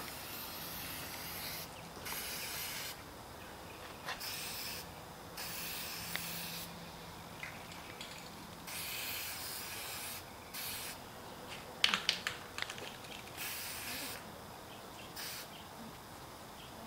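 Aerosol spray paint can hissing in a series of short bursts, each about half a second to a second and a half, with pauses between. A few sharp clicks come a little before the middle.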